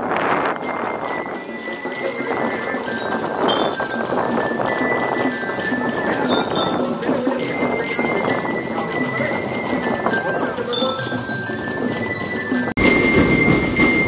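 Marching band music with a bright bell-lyre (marching glockenspiel) melody in high, clear stepping notes over drums. Near the end it cuts out for an instant and comes back louder.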